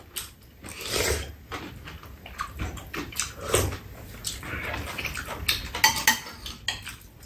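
Metal spoons clinking and scraping against bowls as two people eat, in a string of short, irregular clicks with soft eating noises between.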